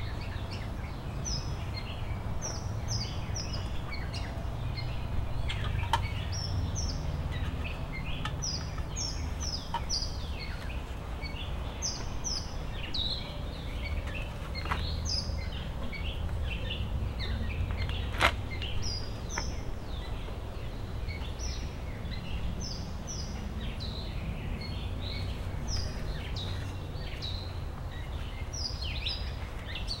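Songbirds chirping outdoors: many short, high, falling chirps, several a second at times, over a steady low rumble. A single sharp click stands out about eighteen seconds in.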